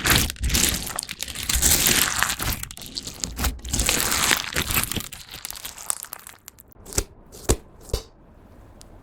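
Slime overloaded with small plastic pellets being squeezed and worked by hand: a dense crunching and crackling of the beads that thins out after about five seconds into a few separate sharp pops.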